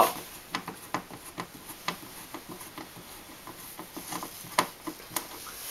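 Light, irregular clicks and ticks of a hand screwdriver turning a small oval-head wood screw up into the underside of a wooden cabinet.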